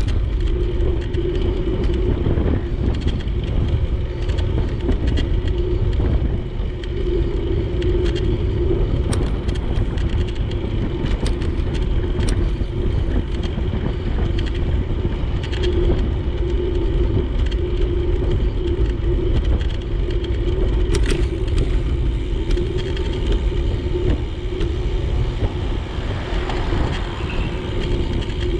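Wind buffeting the microphone and road noise during a bicycle ride, with a steady hum underneath and scattered sharp clicks.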